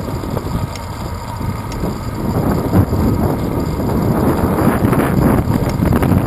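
Wind buffeting the microphone of a handlebar-mounted GoPro Hero 2 on a moving bicycle: a steady low rumble that grows louder from about two seconds in.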